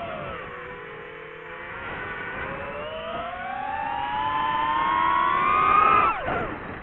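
DJI FPV drone's motors and propellers whining. The pitch climbs steadily for several seconds as motor speed rises, then drops sharply about six seconds in as the throttle comes off.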